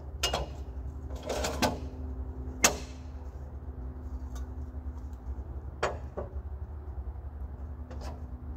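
Portable bandsaw mill's engine idling steadily while the saw is not cutting, under about six sharp knocks and clanks of the elm log being handled on the mill bed, the loudest about two and a half seconds in.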